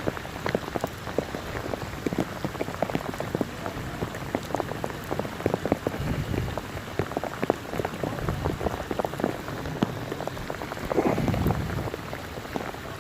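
Rain falling steadily, with many individual drops ticking sharply close to the microphone. A couple of low muffled thumps come about six seconds in and again near the end.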